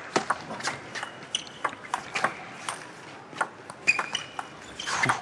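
Table tennis rally: the celluloid ball clicking sharply off the rubber bats and the table in quick irregular succession, with a few brief squeaks about two thirds of the way through.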